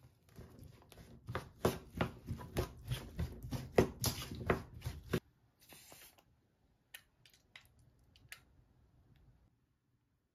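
Wooden spoon stirring and mashing a soft potato and corn mixture in a metal pan: repeated scraping knocks, about three a second, stopping abruptly about five seconds in. Later come a short faint hiss and a few faint clicks.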